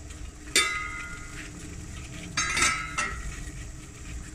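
Stainless steel cooking pot clinking twice, each strike ringing briefly: one sharp clink about half a second in, then a second, rougher clink around two and a half seconds in.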